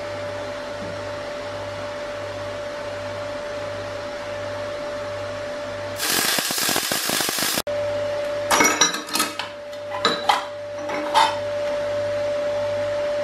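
MIG welder arc crackling and spitting for about a second and a half as it fills a small hole in thin steel sheet backed by a copper bar, after several seconds of steady hum. A few sharp metal clinks and knocks follow.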